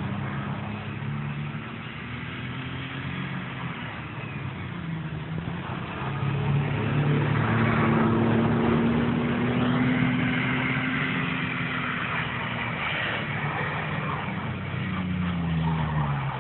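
Truck engine revving as the truck drives around and turns, the engine note rising and falling. It gets louder from about six seconds in, then drops in pitch near the end.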